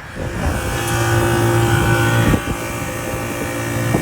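Rooftop HVAC unit running while being charged with refrigerant: a steady mechanical hum from the compressor and condenser fan.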